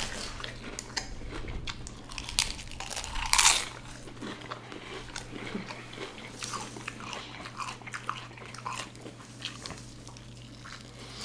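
Close-miked eating: crunchy bites and chewing of fried chicken sandwiches and fried chicken, with one loud crunch about three and a half seconds in.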